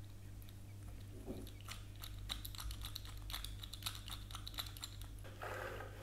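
Small hard-plastic Kinder Joy toy pieces clicking and tapping as the figure and its stand are handled and fitted together, a quick run of light clicks. A soft rustle starts near the end.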